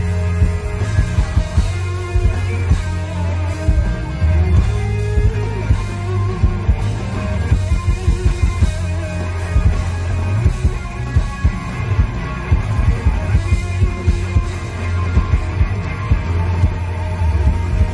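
Live rock band playing, led by a Stratocaster-style electric guitar over a steady bass line and regular drum hits.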